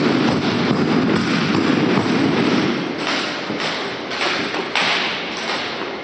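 Thuds and slaps from a rifle drill team's routine. A dense run of low thuds gives way about halfway in to separate sharp impacts roughly every half second.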